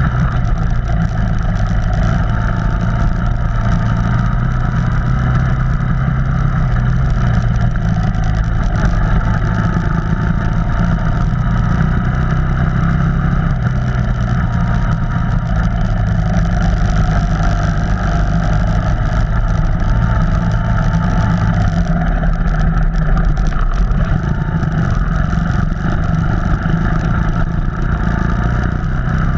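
Off-road vehicle engine running continuously under load, its note rising and falling with the throttle, heard loud and close as from on board.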